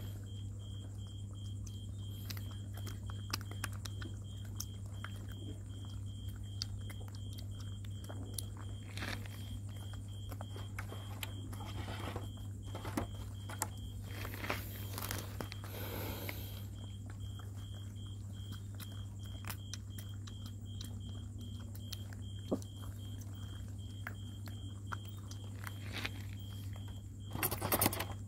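Puppies moving about and chewing on a plastic tarp: scattered light clicks and ticks, with bursts of crinkly rustling a little before halfway and a louder one near the end. A steady low hum and a fast, even, high-pitched chirping run underneath.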